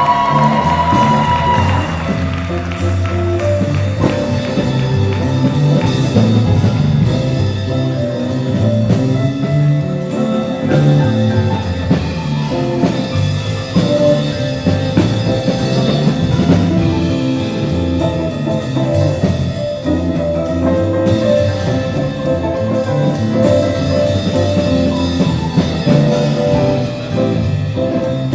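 Student jazz ensemble playing live: a drum kit keeps time with steady cymbal strokes over a walking rhythm section, with a brief bending horn line right at the start.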